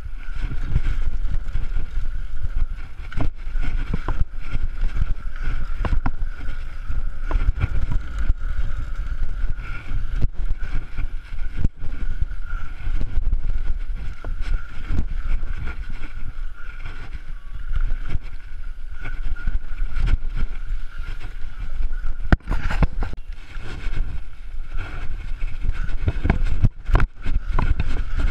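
Wind buffeting the microphone of a camera on a BMX bike riding fast over a dirt track, with tyres rolling on the dirt and frequent knocks and rattles from the bike over bumps. A steady high whine sits under the noise.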